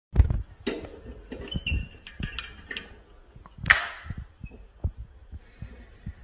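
Handling noise from a phone being moved about, with scattered light knocks and clicks of small objects on a desk and one sharper click about three and a half seconds in.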